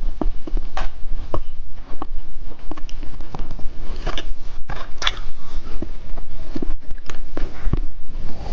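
Someone biting and chewing a billiard-ball-shaped candy: loud, irregular crunches and wet mouth clicks in quick succession.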